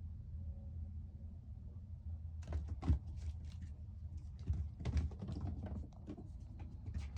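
Quick irregular clicks and taps that begin about two and a half seconds in and continue in scattered runs: kittens' paws and claws scampering and playing on a hard surface. A low steady hum sits underneath throughout.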